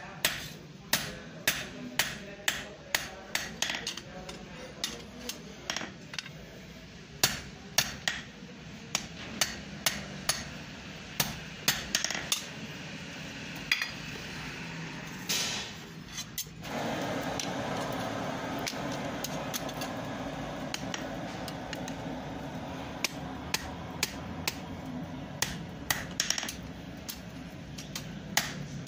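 Hand hammer striking iron on an anvil, about two sharp ringing blows a second, as a two-pronged farm tool head is forged. About halfway through the hammering stops and a steady rushing noise takes over, with occasional lighter strikes returning near the end.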